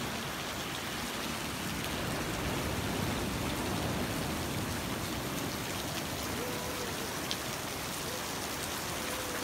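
Water dripping and splashing from a wet rock overhang onto the sand below: a steady, dense patter like rain.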